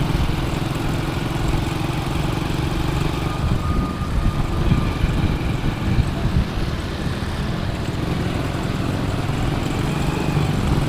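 Small four-stroke Honda step-through motorcycle engine running steadily while riding, with road and wind noise.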